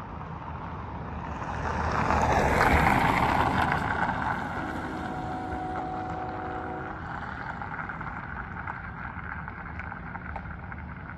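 A car drives across the railroad crossing, its tyre and engine noise swelling to a peak about three seconds in and then fading as it moves away. About five seconds in, a distant train horn sounds a steady chord for about two seconds.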